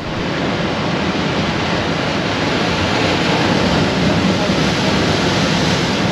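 Ocean surf breaking and washing over coastal rocks: a steady, loud rush of white water.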